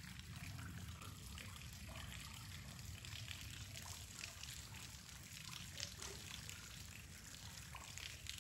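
Water trickling and dripping down a sandstone cliff face, a faint, steady patter of many small irregular drips.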